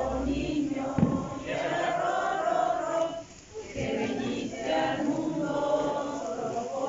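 Mixed group of voices singing together, a traditional Christmas lullaby (arrullo) for the Christ Child, with a brief pause in the singing about three seconds in. A single sharp knock about a second in.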